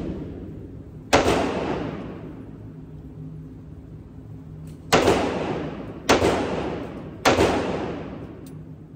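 Four 9mm Glock pistol shots, each ringing on in the echo of an indoor range: one about a second in, then after a pause three more about a second apart.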